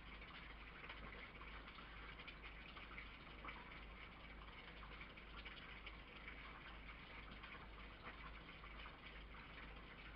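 Near silence: a steady faint hiss over a low hum, with scattered faint ticks.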